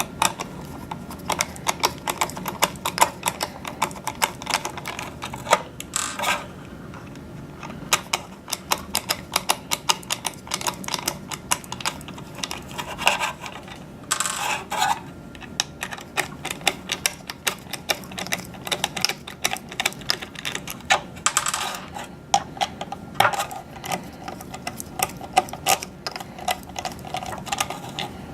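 Screws being backed out of the ePMP Force 100 radio hood with a Phillips screwdriver: a dense run of small clicks and ticks, with a few short scraping rattles about six, thirteen to fifteen and twenty-one to twenty-three seconds in.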